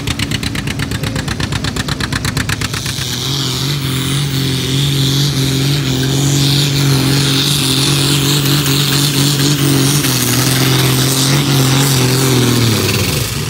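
Antique tractor engine at a tractor pull. It chugs with distinct, evenly spaced exhaust beats, opens up about three seconds in to a louder, steady, higher-pitched run under load for about nine seconds, then drops off near the end.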